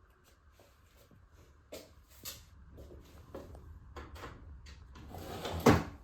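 A series of light clicks and knocks, like objects being handled, growing busier, with one louder thump near the end.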